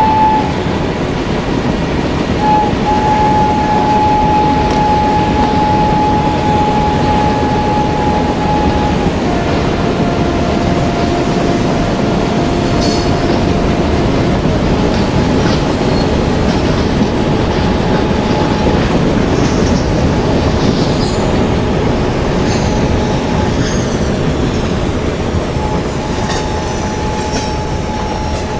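Moving express train running on the rails: a continuous rumble with a steady high whine that drops in pitch about nine seconds in and rises again near the end, and scattered wheel clicks over the rail joints in the second half.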